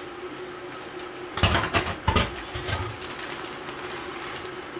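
Food sizzling in a hot wok, with loud crinkling and rattling of a plastic bag of frozen vegetables being handled and poured into the pan about a second and a half in.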